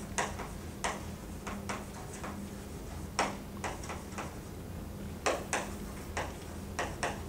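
Chalk tapping on a blackboard while writing: an irregular series of sharp taps, a dozen or so.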